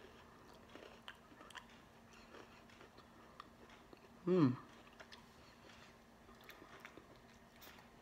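Quiet chewing of a crunchy chocolate-coated biscuit stick, with small crunching clicks throughout. About four seconds in comes a short hummed "mm" falling in pitch, the loudest sound.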